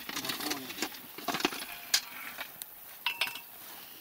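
Broken bricks and stones being packed into a fence-post hole, knocking and clinking against each other, the steel pipe post and a metal bucket: irregular sharp clinks, a couple of them ringing briefly.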